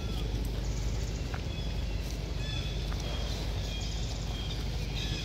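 Outdoor ambience: a steady low rumble with scattered short, high chirps and a few small arching calls.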